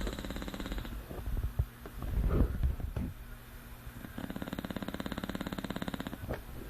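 English bulldog snoring in its sleep. A short buzzing, rattling snore at the start and a longer one from about four to six seconds in, with a louder, low breathy sound between them about two seconds in.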